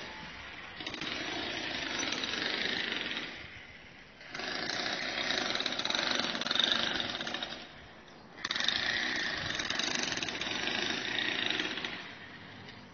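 A power tool, of the jackhammer kind, running in three bursts of about three seconds each, with short pauses between them.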